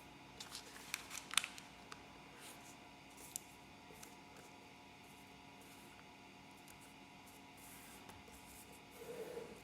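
A square sheet of origami paper being handled and creased: a few sharp crinkles in the first second and a half, then scattered faint rustles over a steady low hum, with a brief louder rustle near the end.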